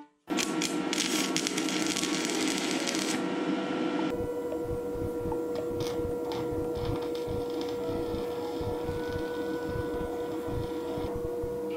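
Stick (arc) welding on steel square tubing: the arc crackles and sizzles steadily. The sound starts abruptly and changes sharply about four seconds in, going on as a crackling hiss with irregular pops.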